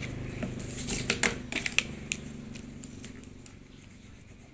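Pens tapping and clicking on paper airplanes against a tabletop, a quick cluster of sharp taps in the first two seconds. A low steady hum underneath fades away.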